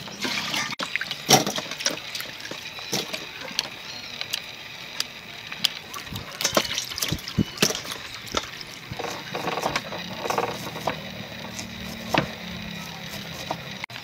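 Water poured from a plastic dipper splashing onto raw crabs and prawns in a steel bowl as they are washed, with scattered knocks and clatters from handling.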